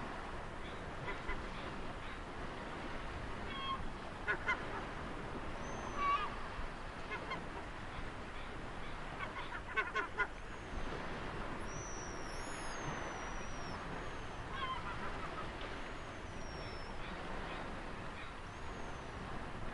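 Steady wash of ocean waves with birds calling over it: short harsh calls several times, and from about halfway on, repeated thin whistles that fall in pitch.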